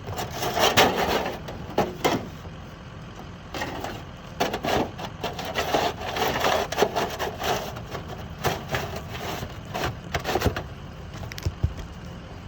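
A knife blade cutting through asphalt shingles and roofing paper in repeated scraping strokes, with a few sharp clicks between them.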